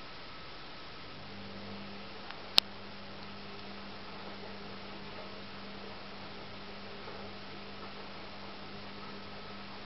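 A steady low hum starts about a second in and holds over a constant background hiss, with one sharp click about two and a half seconds in.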